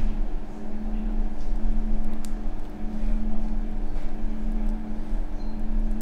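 A machine's steady low hum with a constant held tone, running without change, and a faint tick about two seconds in.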